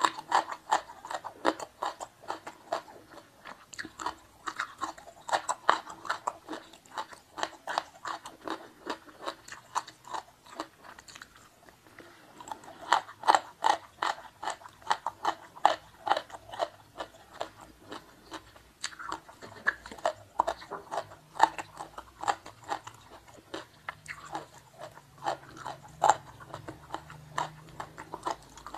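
Close-miked eating sounds: a person chewing and crunching food, with rapid crisp clicks several times a second in runs and a short lull a little before halfway.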